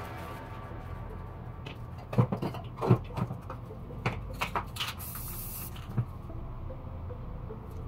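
Aerosol spray paint cans being handled, with several sharp knocks and clacks of the cans, then a short hiss of a spray can firing for about half a second, about five seconds in, and one more knock soon after.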